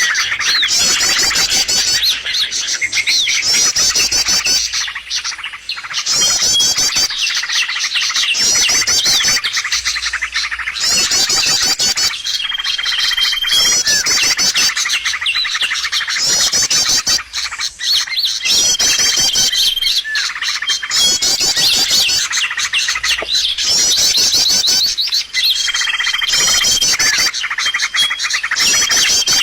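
Bird lure recording: a loud, dense chorus of small birds chirping in rapid repeating phrases, with short steady whistles now and then.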